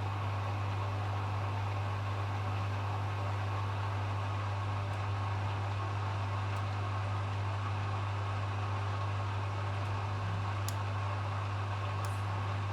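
Hoover HW411AMC washing machine in its final spin, its drum turning steadily at speed with a constant low hum. A few faint ticks come in near the end.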